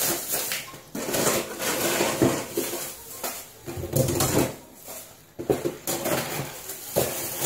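Frozen groceries being shuffled and packed into a full freezer compartment: cardboard boxes and plastic tubs sliding, scraping and knocking against each other and the freezer shelf in an irregular run of rustles and knocks.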